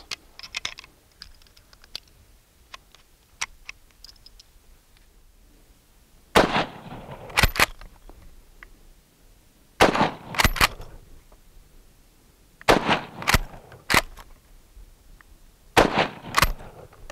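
Small metallic clicks as cartridges are loaded into a Ross MkIII straight-pull .303 rifle. Then come four rifle shots about three seconds apart, each followed within a second by the clack of the straight-pull bolt being worked back and forward.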